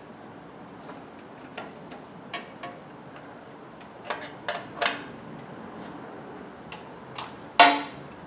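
Scattered sharp metal clicks and taps of a hand tool working the spindle motor's belt-tension bolt and mount, with one louder knock near the end.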